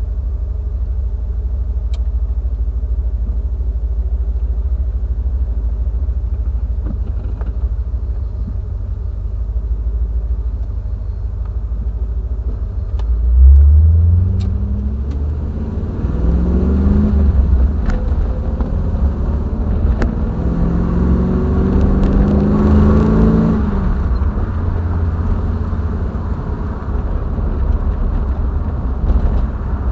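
Triumph TR7's 4.6-litre V8 driving along, a steady low rumble. Partway through it is pushed hard, with a loud surge and then the engine note rising in steps through the gears, a second time a few seconds later.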